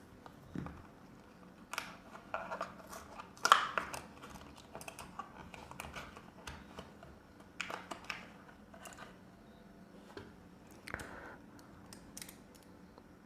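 Scattered small metallic clicks and rattles from a 4-digit combination padlock being handled and opened, with a louder clack about three and a half seconds in.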